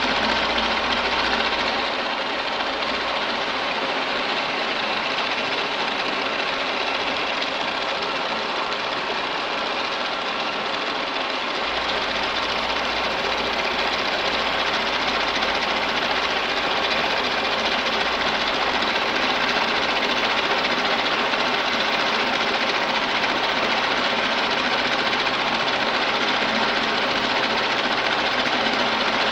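Universal milling machine running with an end mill cutting a step into a metal workpiece: a steady, dense machining noise. A low hum underneath drops out about two seconds in and comes back around the middle.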